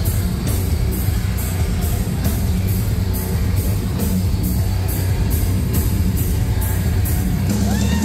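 Live metalcore band playing loud: electric guitars and bass over drums, with cymbals struck on a steady beat about twice a second.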